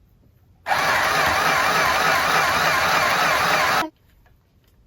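Electric mini sewing machine running under its foot pedal for about three seconds, starting and stopping abruptly.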